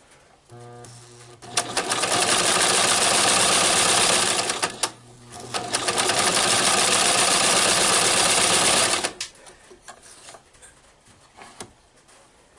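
Vintage Singer electric sewing machine being test-run after rewiring: its motor hums low about half a second in, then the machine runs fast for about three seconds, pauses briefly, and runs again for about three seconds before stopping.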